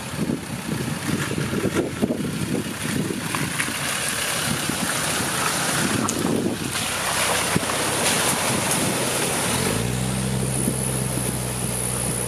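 Wind gusting on the microphone over vehicle noise. From about ten seconds in, a steady engine hum starts over rushing water as a 4x4 wades through floodwater.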